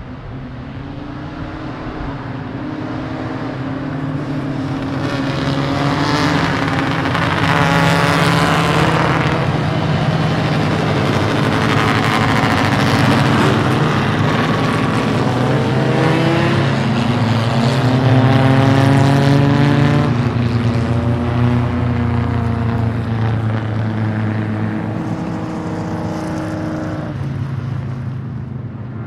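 Several racing car engines running hard together, their pitches rising again and again as they accelerate and shift up. The sound builds over the first few seconds, stays loud through the middle and eases off near the end.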